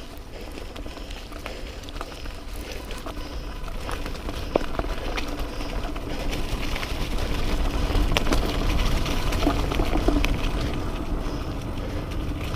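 Mountain bike rolling along a dirt trail: tyre noise and a rattle of scattered clicks from the bike over the ground, with wind rumbling on the microphone. It gets louder a little past halfway and eases off near the end.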